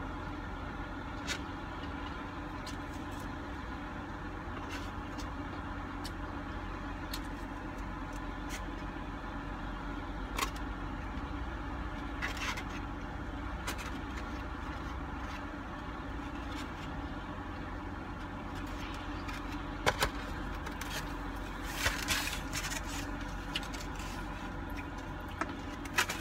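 Steady low hum of a running car heard from inside its cabin, with occasional short clicks of a plastic fork against a styrofoam takeout box. A denser patch of clicking and rustling near the end as the box is handled.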